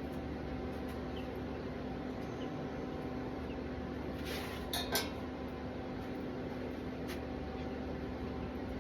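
A steady mechanical hum with a couple of even tones, broken about four to five seconds in by a few short metallic clinks, with one fainter clink near seven seconds.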